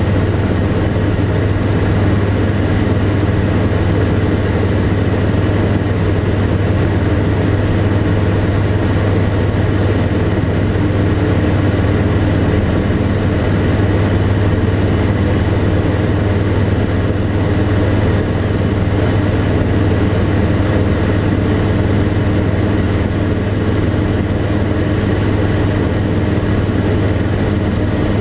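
Tecnam P92 Echo Super's Rotax 912 flat-four engine and propeller running steadily in flight, heard inside the cockpit: a loud, even drone with a strong low hum and a few steady higher tones.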